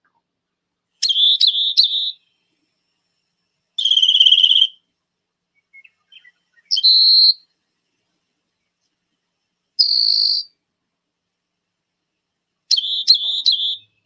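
Recorded rock wren song: five short high phrases, each about a second long and a few seconds apart, with the first and last phrases the same quick trill.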